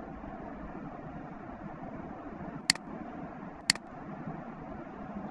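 Two sharp clicks of a computer mouse button, about a second apart, over a steady low hiss of room and microphone noise.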